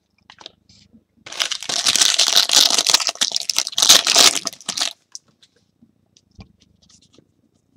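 Foil wrapper of a 2015 Topps Premier Gold soccer card pack torn open and crinkled by hand: a dense rustling tear starting about a second in and lasting three and a half seconds, then a few faint clicks as the cards are handled.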